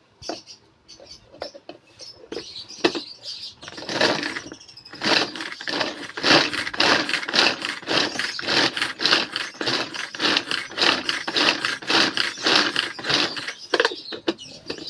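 Hand-operated vegetable chopper cutting hard carrots: a few scattered clicks, then about five seconds in a fast, even run of chopping strokes, roughly three or four a second, stopping shortly before the end.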